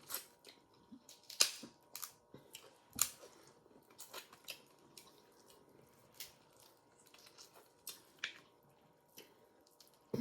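Crab-leg shells being cracked and snapped open: a run of irregular sharp cracks and clicks, the loudest about one and a half and three seconds in.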